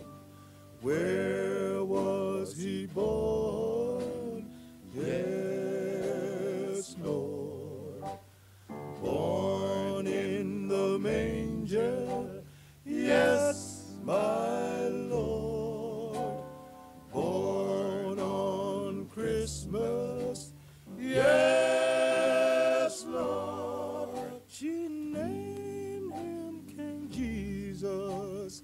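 Male gospel vocal quartet singing a slow passage in close harmony, held notes with vibrato in phrases of a few seconds, broken by short pauses.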